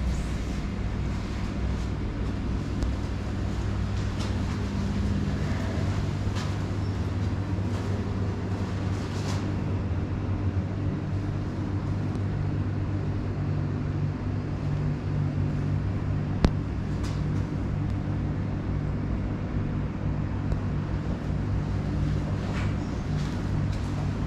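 Steady low mechanical hum, like a motor or engine running, with one sharp click about two-thirds of the way through.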